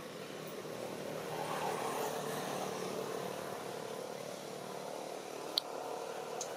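Distant engine drone that swells and then slowly fades, with a single sharp click about five and a half seconds in.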